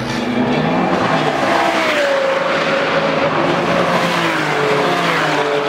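A car engine revving hard as the car pulls away, with tyres squealing in long, pitched squeals that slide downward.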